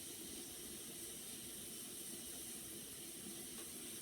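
Hot pot broth simmering on the table with a faint, steady hiss.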